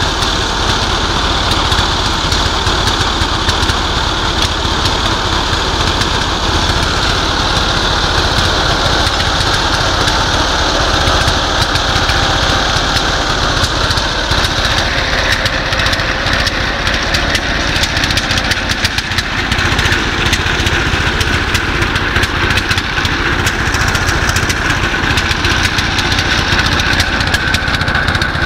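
Core drilling rig running steadily under power while boring, its engine note loud and continuous, with the tone shifting slightly about halfway through.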